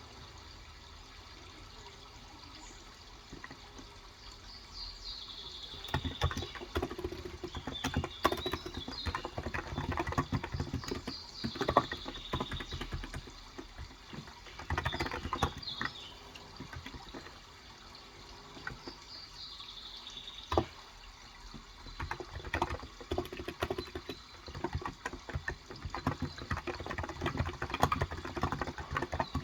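Typing on a Cox Endeavor electro-capacitive 35 g tenkeyless keyboard: rapid runs of soft key presses begin about six seconds in, with a brief pause around two-thirds of the way through. Under it runs a steady water sound, and birds chirp now and then.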